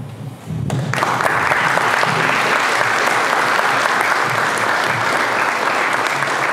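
Crowd of guests clapping, starting suddenly about a second in and going on steadily at the end of a toast.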